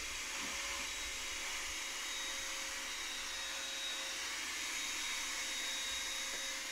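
Vacuum cleaner running steadily with a faint, even whine as it cleans drilling dust out of a residential electrical panel.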